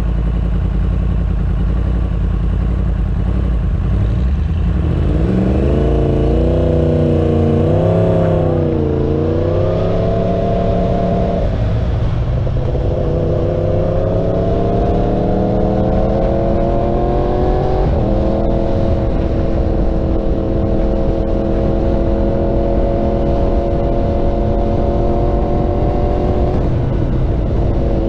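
Yamaha R1 inline-four with a Graves aftermarket exhaust idling at a stop, then pulling away about five seconds in. It shifts up three times as it gets under way, the engine note climbing in each gear.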